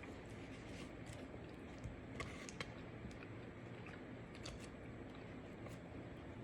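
Faint eating sounds: scattered small clicks and smacks of someone chewing food close to the microphone.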